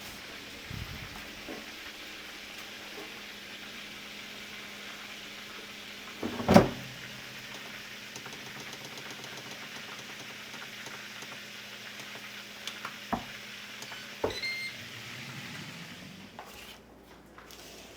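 Catfish frying in hot seasoned oil: a steady sizzle over a low hum. One loud clunk comes about six and a half seconds in, then a couple of sharp clicks and a short high beep about two thirds of the way through.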